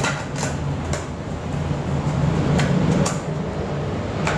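Sharp metallic clicks and knocks, about half a dozen spread irregularly, as a CO2 gas line's quick-disconnect is handled and pressed onto a post on a stainless homebrew keg's lid. A steady low hum runs underneath.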